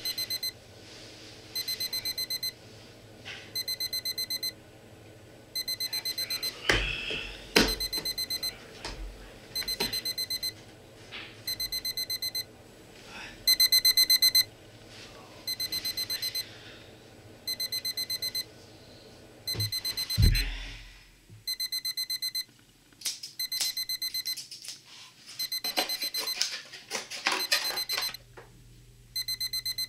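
Digital alarm clock going off: short bursts of rapid high-pitched beeps repeating about every two seconds. Between the bursts come a few knocks, a louder thump about twenty seconds in, and a run of small clattering clicks near the end.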